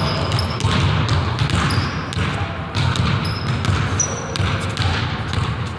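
A basketball bouncing on a hardwood gym floor in irregular thuds, with short high sneaker squeaks. A steady low hum runs underneath.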